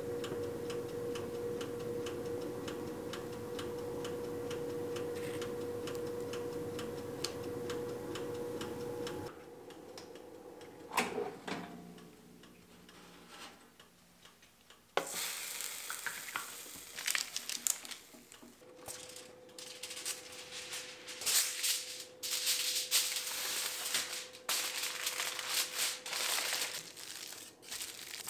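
A steady hum with regular light ticking, then a knock. From about fifteen seconds in, aluminium foil crinkles and rustles in bursts as it is pressed and smoothed over a metal oven rack.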